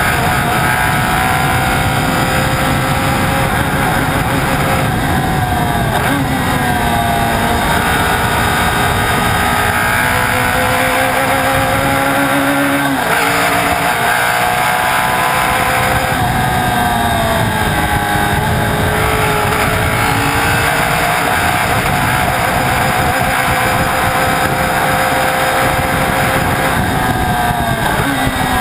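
Alfa Romeo T33 race car's engine running hard at racing speed, heard close up from on board. Its pitch climbs under acceleration and falls back several times, about six, thirteen and sixteen seconds in and again near the end.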